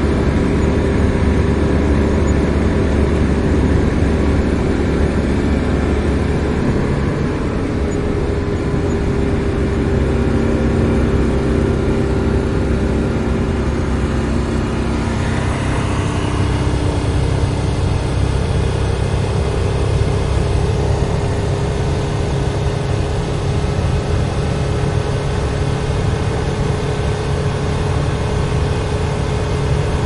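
Citroën 2CV's air-cooled flat-twin engine running steadily, its note changing about seven seconds in, with a brief rising whine around the middle.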